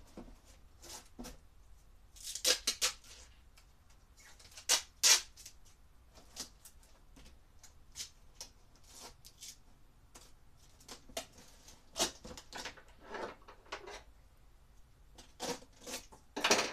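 Clear packing tape being pulled off the roll and pressed onto a cardboard box, in several short separate pulls, with the cardboard rustling as it is handled.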